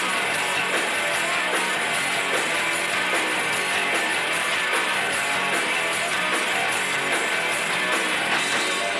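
A live rock band playing: electric guitars strummed over a drum kit.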